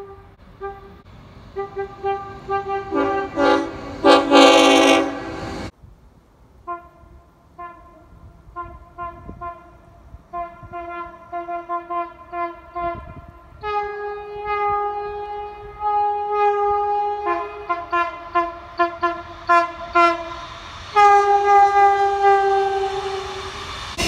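Train horn sounded over and over: runs of short toots, a few a second, broken by longer held blasts, one about 14 s in and a loud one near the end. The sound cuts off abruptly about 6 s in, then the toots resume.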